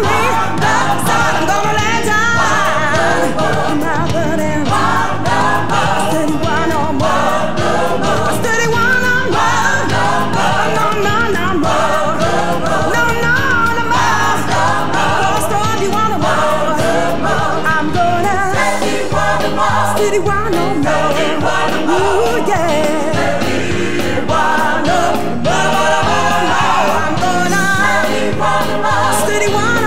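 Gospel-style hymn singing by a choir of voices over instrumental accompaniment, continuous.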